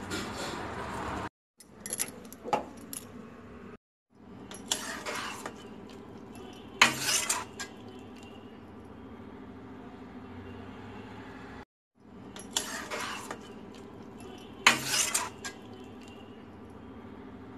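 Metal kitchenware clinking and scraping against a cooking pan in a handful of short bursts, the sharpest about seven seconds in and again near fifteen seconds, over a steady low hum. The sound cuts out completely for a moment three times.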